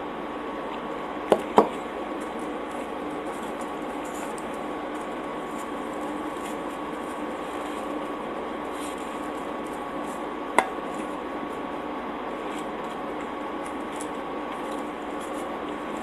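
Steady background hum with a few sharp tableware clicks while someone eats pizza at a table: two clicks in quick succession about a second and a half in, and one more about ten seconds in.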